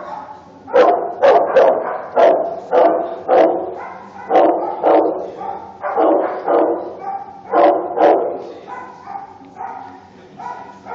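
A dog barking repeatedly, about a dozen loud barks in quick succession, with weaker barks after about eight seconds.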